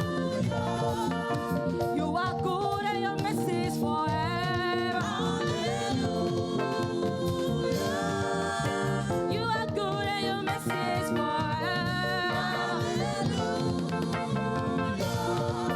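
Gospel praise music: a singer's melody runs over sustained chords and a band accompaniment, with no break.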